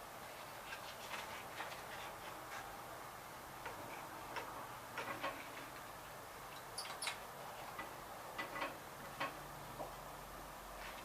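Faint, irregular light clicks and taps of hands and tools working on the engine, a few sharper ones about five and seven seconds in, over a low steady background.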